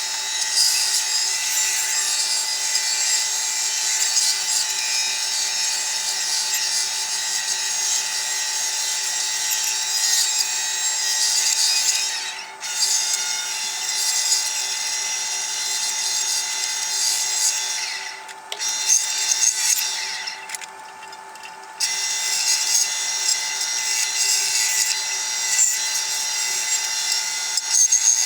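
Bandsaw running and cutting through wood: a steady hum under a hissing cut. The cutting noise breaks off briefly about halfway through, and again for about a second near three quarters of the way.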